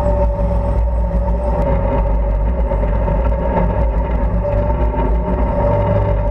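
A tank running close-up, a steady low rumble with a constant whine over it, as the tank moves.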